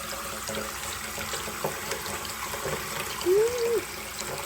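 Water running steadily from a tap. About three seconds in, a short vocal sound rises and then falls in pitch.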